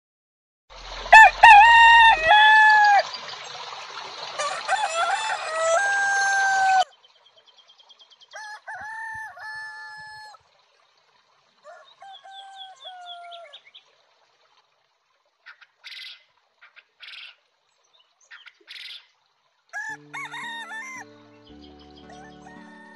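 Rooster crowing several times, loudest in the first seven seconds, then fainter crows and calls. Near the end a simple melody of steady electronic tones starts.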